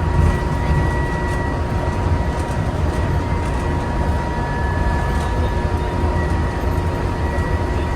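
Walt Disney World monorail train running: a steady low rumble with a constant whine at a few fixed pitches, heard from inside the car.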